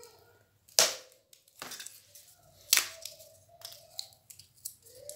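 Pre-cut cardboard parts being pushed out of a die-cut card sheet: two sharp snaps about two seconds apart, with lighter clicks and rustling of the card between them.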